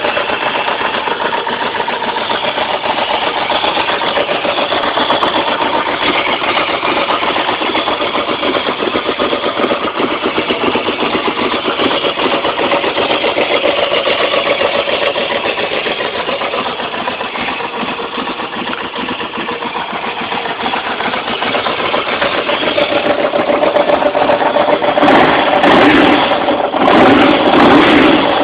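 1993 Ducati 900SS's air-cooled, two-valve desmodromic V-twin engine idling steadily, then revved in a few short throttle blips in the last few seconds.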